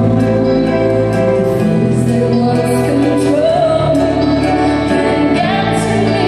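A woman singing with instrumental backing, holding long notes, the melody stepping up to a higher held note about halfway through.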